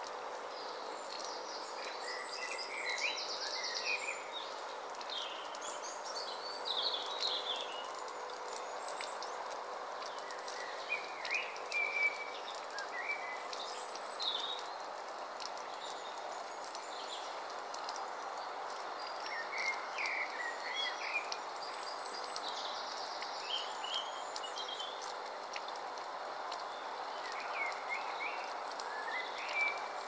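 Water trickling steadily over the pebbles of a garden bowl fountain, with songbirds singing short chirping phrases every few seconds.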